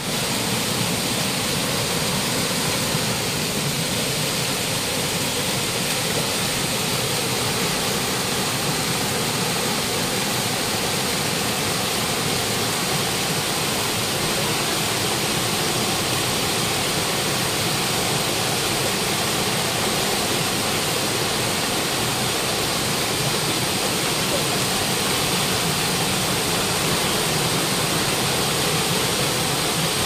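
Waterfall rushing steadily: an even, unbroken wash of falling water.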